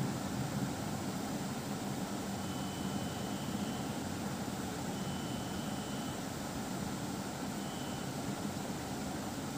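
Steady low background hum with an even hiss, unchanging throughout, and a faint thin high tone heard briefly three times in the middle.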